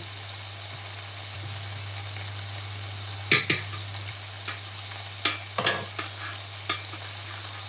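A spoon stirring rice in an electric rice cooker's pot, clicking against the metal about half a dozen times over a steady hiss.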